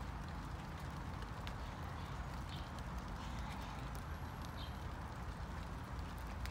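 Steady rain falling outdoors: an even hiss with a few scattered taps of drops.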